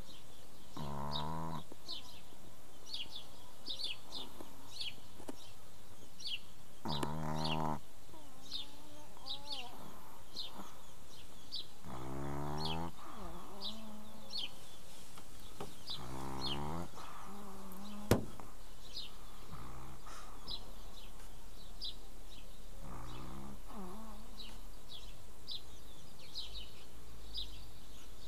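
Pekingese dog snoring: five drawn-out, pitched snores several seconds apart, over birds chirping steadily in the background. A single sharp click comes about two-thirds of the way through.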